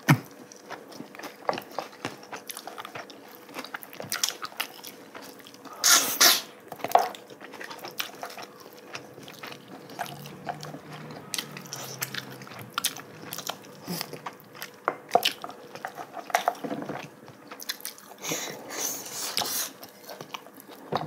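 Close-up eating sounds: chewing, lip smacks and gnawing on braised oxtail, with many small wet clicks, and two louder noisy bursts about six seconds in and near the end.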